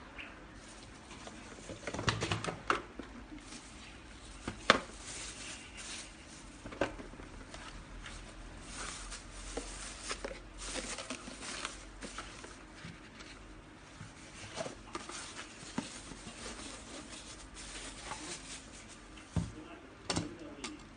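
Thin plastic dog waste bags rustling and crinkling as they are handled, with scattered clicks and taps of a hard plastic bag dispenser case, the sharpest about five seconds in.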